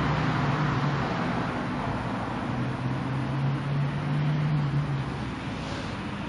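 Steady outdoor road-traffic noise: a low, constant hum over a hiss.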